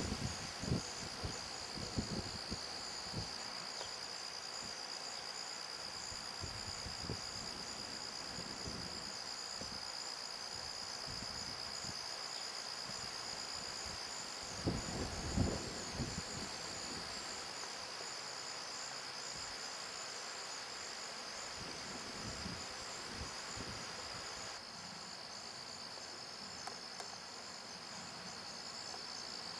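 Steady, high-pitched chorus of crickets and other insects. A few low thumps break in near the start and again about fifteen seconds in.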